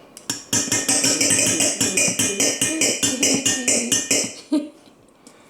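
Kitchenware rapped quickly and evenly with a utensil, about six ringing clinks a second, stopping after about four seconds.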